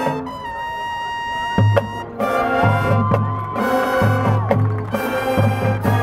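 High school marching band playing live outdoors: brass and drums. A held brass chord fades back over the first couple of seconds, then a drum hit brings the full band back in with a steady drum pulse under the horns.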